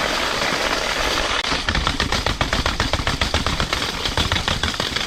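Bare mountain-bike rear rim rolling with no tyre, a loud fast rattling clatter of metal on the ground. Its spokes have lost tension, so the damaged wheel rattles as it goes.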